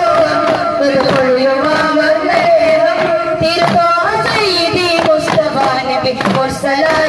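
Duff muttu: a group striking daf frame drums in a rhythm of sharp beats, under a voice singing a Mappila devotional song with long held notes.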